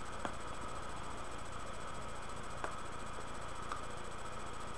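Steady background hiss and hum with a faint constant whine, broken by three faint short clicks spaced one to two seconds apart.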